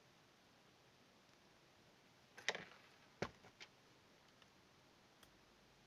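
Near silence with a few light clicks and taps of small objects being handled: a short cluster about two and a half seconds in, a sharper click about a second later, then a faint one near the end.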